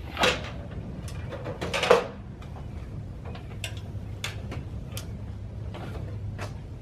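Aluminium step ladder being folded shut, with two metallic clatters in the first two seconds, then scattered light clicks and knocks as it is carried, over a low steady hum.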